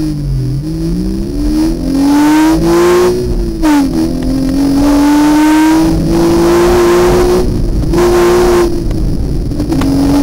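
Porsche Boxster's flat-six engine revving hard through an autocross course: its pitch climbs over the first couple of seconds, dips briefly about four seconds in, holds high for a few seconds, then eases off near the end.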